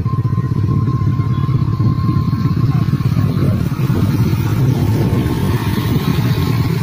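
Motorcycle engine running steadily under way, a low, fast-pulsing drone heard from the moving bike.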